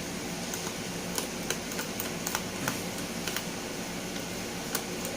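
Irregular small clicks and taps of a screwdriver and loose screws against a laptop's plastic base cover, about a dozen spread unevenly, over a steady background hum.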